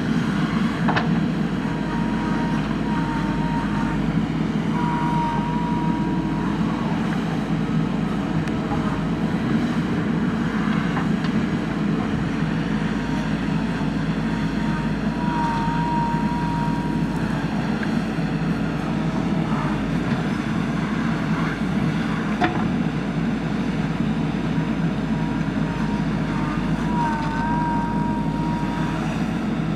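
JCB backhoe loader's diesel engine running steadily under work, with a few brief higher tones and a few sharp knocks over it.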